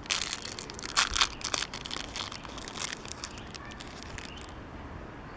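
Plastic packaging crinkling and crackling as a toy coin capsule is worked open by hand. The crackles are dense at first, then thin out and stop about four and a half seconds in.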